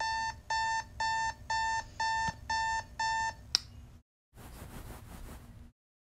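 Digital alarm clock beeping, about two short beeps a second, which cuts off with a sharp click about three and a half seconds in. A faint hiss follows briefly.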